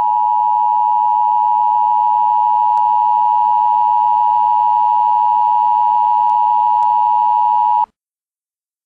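Emergency Alert System attention signal: the steady two-tone alert held for about eight seconds, then cutting off abruptly.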